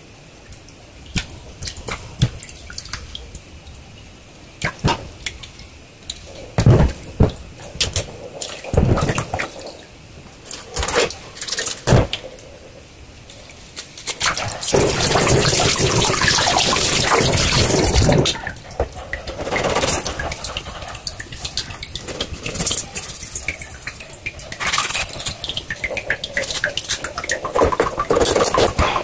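Fish being cleaned at a kitchen sink: water splashing and dripping as pieces are handled in a container of water, with scattered knocks of a knife and fish on a wooden cutting board. About halfway through, a tap runs steadily for a few seconds.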